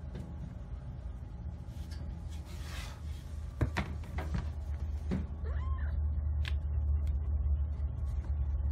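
A cat being petted gives a short meow a little past halfway, among a few sharp knocks as it moves about.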